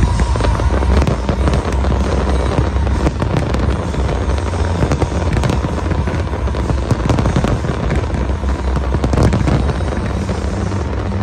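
Large aerial fireworks display: a dense run of crackling pops from many shells and sparkling stars bursting at once, over a steady low rumble of booms.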